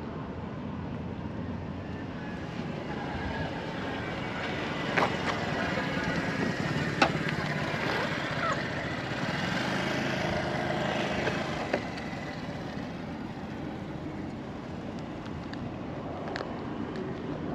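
Steady outdoor background noise that swells for several seconds and then fades, with a few sharp clicks over it.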